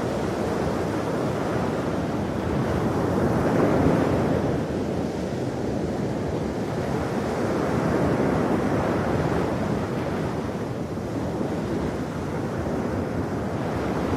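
Ocean waves breaking and washing on a shore, a continuous surf noise that swells about 4 seconds in and again about 8 seconds in.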